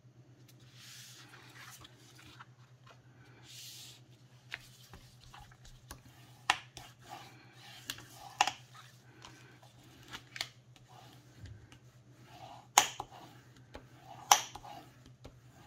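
Sheets of heavy cardstock being handled on a cutting mat: soft paper rustling and sliding, then several sharp taps and clicks as the sheet is turned and pressed flat by hand. A faint steady low hum lies underneath.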